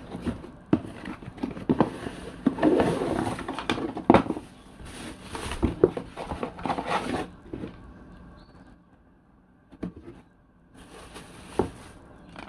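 A hair dryer's cardboard box and packaging being opened and handled by hand: irregular rustling and scraping with sharp knocks, going quiet for a couple of seconds about two thirds through before a few more knocks.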